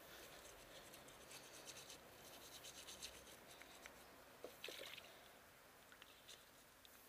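Faint wet scrubbing of a toothbrush on the brake caliper pistons in quick short strokes, with a few small clicks about four and a half seconds in.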